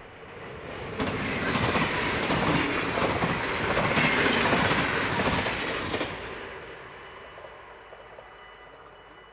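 Dutch NS passenger train passing at speed over a level crossing: the rumble and wheel clatter build up, are loud for about five seconds, then fade away as the train recedes.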